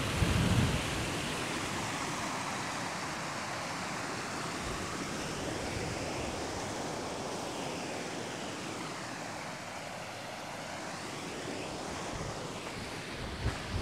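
Wind blowing outdoors as a steady rushing hiss, buffeting the microphone with low rumbling gusts in the first second and again near the end.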